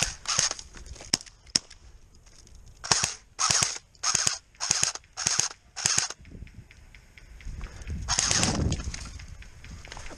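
Airsoft gun firing a run of about six shots, roughly one every half second, with scattered sharp clicks of other shots before and after. A longer rustling noise comes about eight seconds in.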